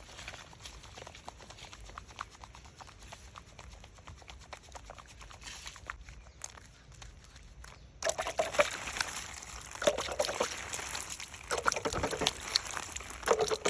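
Liquid being poured and sloshed, with many small clicks and taps; the sound steps up sharply and gets louder about eight seconds in.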